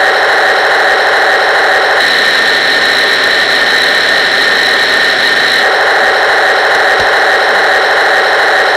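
Metal Taigen Tiger 1 RC tank's motors and gearing, heard close up: a steady mechanical whir with a thin high whine. Its tone shifts from about two to six seconds in.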